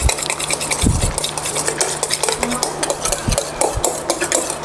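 Wire whisk beating egg whites by hand in a stainless steel bowl, a fast, steady run of light clicks and scrapes of wire against metal as the whites are whipped toward stiff peaks.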